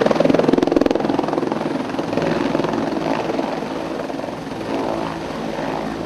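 Helicopter hovering close by and setting down on its skids. The main rotor chops rapidly over a steady high whine, loudest in the first second and easing off gradually.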